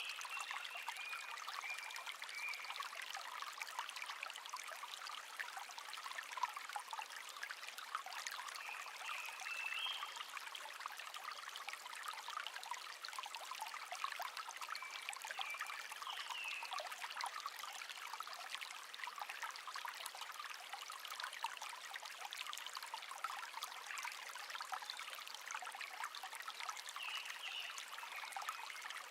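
A shallow stream babbling steadily, with a songbird singing short phrases every few seconds.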